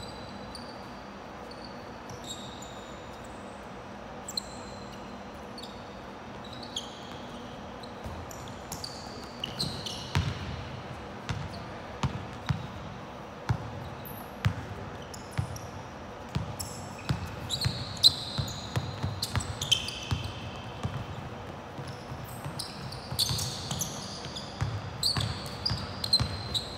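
A basketball bouncing on a hardwood court, with rubber-soled sneakers squeaking on the floor during play. The first few seconds hold only a few bounces; from about a third of the way in, dribbles and squeaks come thick and fast.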